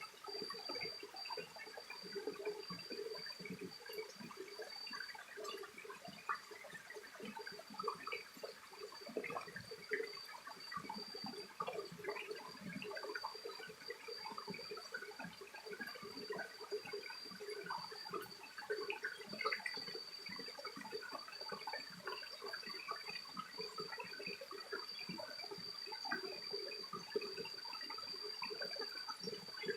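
Shallow mountain stream running over rocks, a busy irregular babble of small gurgles and splashes, with a steady high-pitched whine above it.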